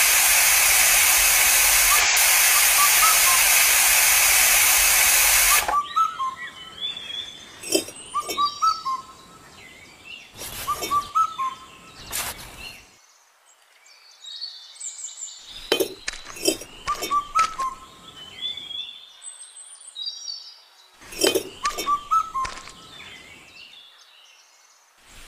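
A loud, steady hiss that cuts off suddenly about six seconds in, then miniature clay bricks clicking and tapping in small clusters as they are handled and set in mortar, with birds chirping throughout.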